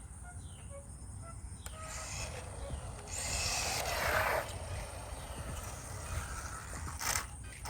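Haiboxing 18859A electric RC truck driving around, its motor, gears and tyres loudest about three to four seconds in. Faint bird chirps sound in the first second or two, over a low wind rumble.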